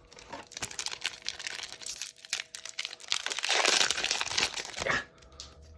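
Foil booster-pack wrapper crinkling with small crackles, then a louder stretch of crinkling and tearing about three to five seconds in: a Magic: The Gathering booster pack being torn open.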